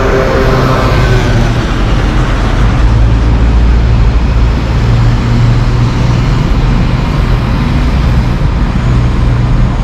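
City street traffic: buses and cars running along the avenue, a steady low engine rumble under the road noise.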